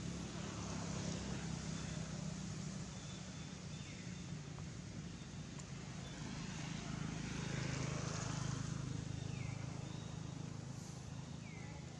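A steady low engine hum that grows somewhat louder about seven to nine seconds in, with a few faint, short falling chirps above it.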